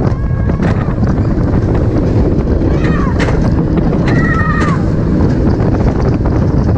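Roller coaster train running at speed on Iron Gwazi's hybrid steel-on-wood track: heavy wind rush over the microphone and the rumble of the train. Riders scream several times, once briefly near the start, again around three seconds in, and longest about four seconds in.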